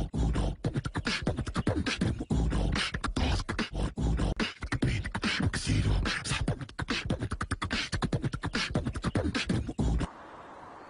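A person beatboxing: fast, rhythmic vocal drum sounds with heavy low kicks, stopping abruptly about ten seconds in, after which only a faint steady hiss remains.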